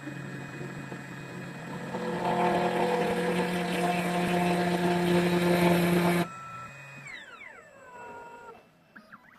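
2M2 Tank CNC key cutting machine milling a Mul-T-Lock key: a steady whirring and grinding that builds over the first two seconds, then cuts off abruptly about six seconds in, followed by a falling whine as the machine winds down.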